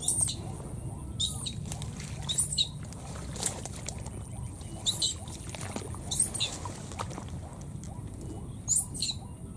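A small animal's shrill, high-pitched squealing calls, about six short arching cries spaced one to two and a half seconds apart.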